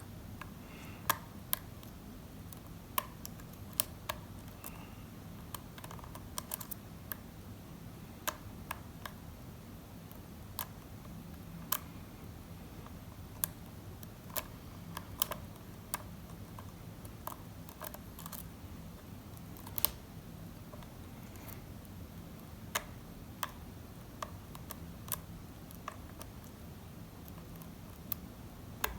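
Lock pick working the pin stacks of a pin-tumbler challenge lock with spool pins: light metal-on-metal clicks and ticks, irregular, a few each second, as pins are lifted and set under tension.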